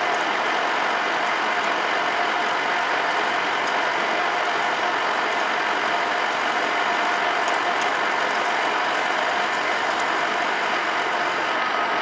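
Metal lathe running with its steel workpiece spinning between chuck and tailstock centre: a steady mechanical whir from the spindle and gearing, with a faint steady whine over it.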